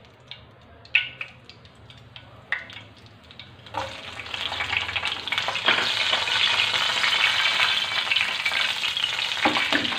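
Hot oil with cumin seeds in a nonstick frying pan: a faint crackle and a few light clicks at first. About four seconds in, whole dried red chillies drop into the oil and it breaks into a loud, steady sizzle, the tempering (tadka) being fried.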